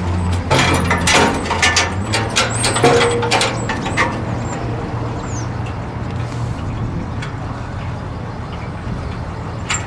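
A steel hitch-mounted swing-out tire and jerry-can carrier is swung shut and latched, making a run of metal clanks and knocks over the first few seconds, one of which rings briefly, with a single click near the end. A steady low engine hum runs underneath.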